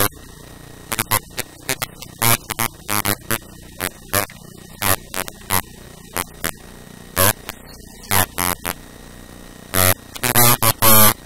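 A person's voice talking in short bursts over a steady mains hum and hiss.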